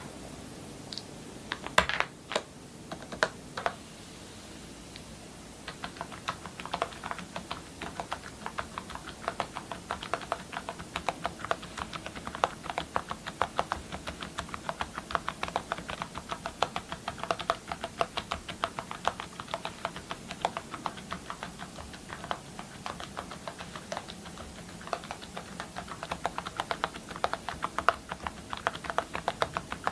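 Typing on a mechanical keyboard fitted with metal keycaps. A few separate, louder clicks come in the first four seconds, then steady fast typing, several keystrokes a second, from about six seconds in.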